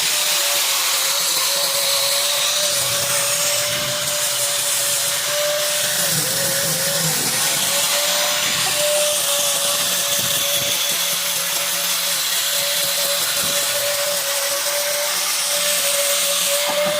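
Electric power tool motor running steadily with a high whine and hiss while working wood, its pitch dipping briefly under load about six seconds in.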